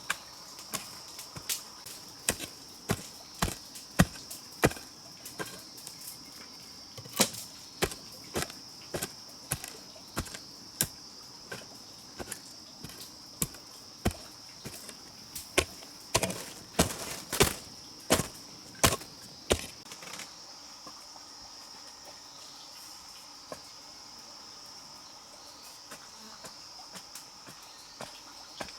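Irregular chopping strikes of a hand tool, one or two a second, stopping about twenty seconds in, over a steady high insect trill.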